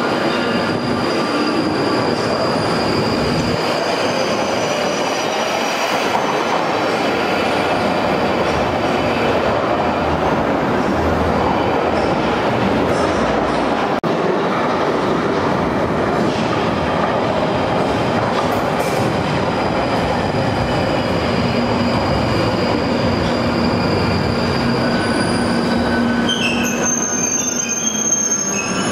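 London Underground 1995 Stock tube train pulling out of the platform, then another 1995 Stock train running in and braking to a stop. The wheels and traction motors make a loud, continuous rumble with squealing wheels, and the motor whine falls away as the second train slows.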